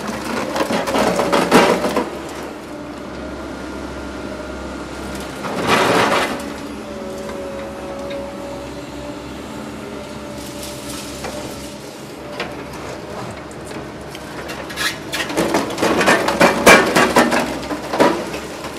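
An excavator running with a steady machine whine while its Atlas Copco DP 2800 demolition pulveriser crushes concrete. Loud crunching and cracking come at the start, again about six seconds in, and for several seconds near the end as broken concrete chunks fall.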